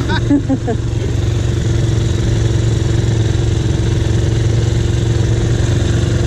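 Quad bike (ATV) engine idling steadily.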